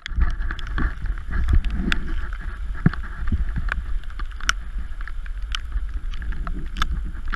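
Storm rain and wind: a steady wash of falling rain with many separate sharp drop hits close by, over a low rumble of wind buffeting the microphone.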